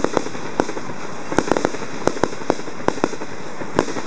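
Fireworks going off: about a dozen sharp pops and bangs at uneven intervals over a steady hiss.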